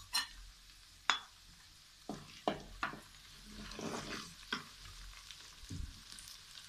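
Ginger and garlic paste sizzling in oil in a metal wok as a spatula scrapes and stirs it. Several sharp clicks come from the spatula knocking on the bowl and the pan.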